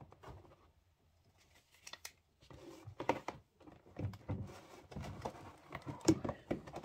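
Cardboard model-train box and its packing being handled: a couple of small clicks, then from about two and a half seconds in a string of scrapes, rustles and light knocks as the packed model is worked loose inside the box.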